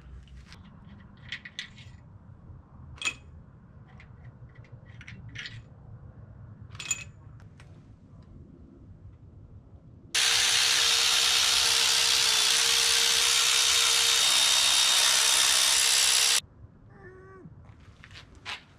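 Light clinks and taps of tools on metal, then a power ratchet running steadily for about six seconds and stopping abruptly, spinning out the engine's main cap bolts. A short wavering squeak follows near the end.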